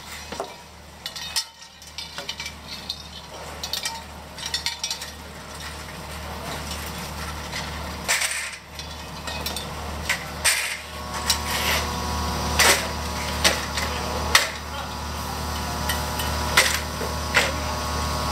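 Stacked plastic fish crates knocking and clattering as they are handled and wheeled on hand trolleys, in many sharp separate knocks that come thicker in the second half. A steady low hum runs underneath.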